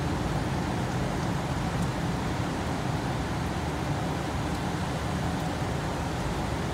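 Heavy rain pouring down steadily, an even hiss with a strong low rumble underneath.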